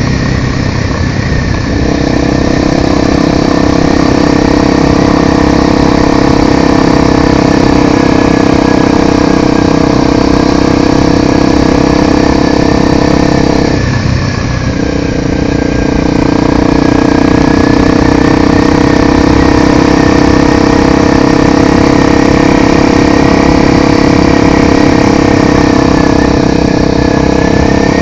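Single-cylinder engine of a Honda XR 250 Tornado motorcycle running steadily under way. It eases off briefly right at the start and again about halfway through, as if off the throttle for a gear change, then settles back to a steady pitch.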